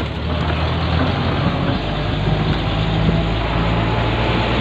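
Large diesel generator set on a wheeled trailer being moved along a path: a steady rumble of the trailer rolling, with a low engine-like hum that shifts slightly in pitch.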